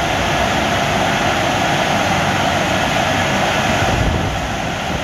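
Drying blowers of a CSB Blue Millennial car wash running, a loud steady rush of air that dips slightly near the end.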